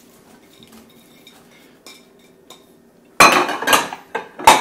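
Plate and kitchenware clattering on the table: a loud clatter about three seconds in and another near the end, after a quiet stretch with a faint steady hum.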